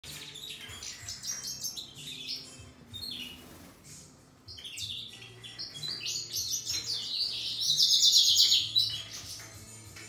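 Goldfinches in an aviary singing and twittering in rapid high chirps and trills. They dip briefly about four seconds in, and a loud, fast trill comes about eight seconds in.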